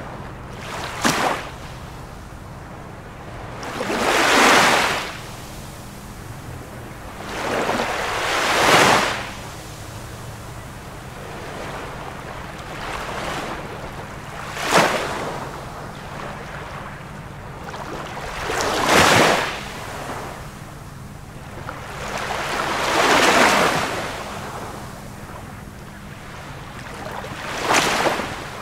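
Ocean waves washing in about every four seconds, each one swelling up and falling away; some break quickly, others build more slowly.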